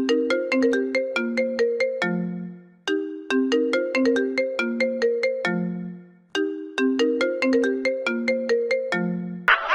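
Phone ringtone: a short melody of quick struck, bell-like notes, played through about three times with a brief gap between repeats. It cuts off just before the end as another sound starts.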